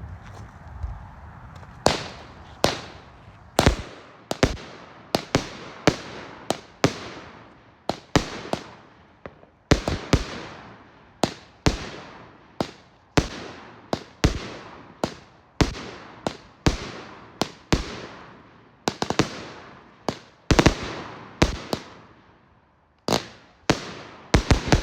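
"Sonic" 25-shot firework cake firing its shots one after another. Starting about two seconds in, there is a long series of sharp bangs, roughly one or two a second, each with a short fading tail.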